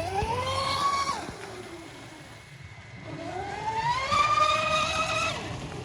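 TFL Zonda RC catamaran's electric drive whining as it is throttled up twice: a short rise in pitch that cuts off after about a second, then a longer climb from about three seconds in that holds high before dropping away.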